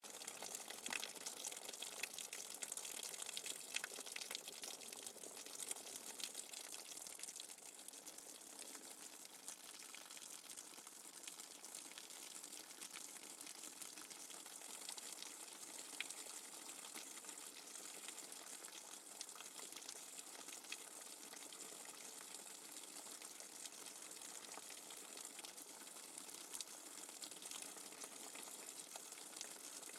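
Rainwater dripping fast and hard: a dense patter of drops with many sharp individual drip clicks. It is a little busier and louder in the first several seconds, then settles into a steady patter.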